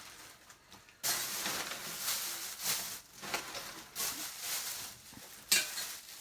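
Rustling and handling noise of unpacking, with packing material and parts being moved about in stretches, and a sharp click near the end.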